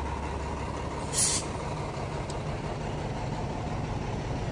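Diesel fire apparatus idling with a steady low hum, and one short hiss of air from an air brake about a second in.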